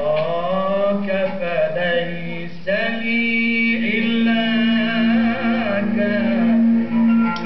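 A male voice singing a tawshih, an Arabic religious chant, with long melismatic lines sliding up and down in pitch. A steady low held note sounds beneath the voice from about three seconds in.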